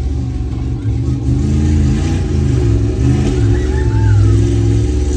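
Monster truck engine revving and pulling hard as the truck drives up and over two parked cars, its pitch rising and falling with the throttle.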